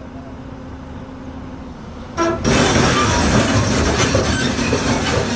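Heavy machinery, the excavator being loaded, running with a low steady engine hum; about two seconds in comes a brief horn-like toot, then a sudden loud, dense rush of noise that continues.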